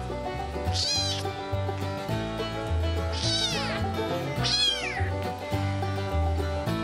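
A young kitten mewing three times, each mew high and falling in pitch, over background music.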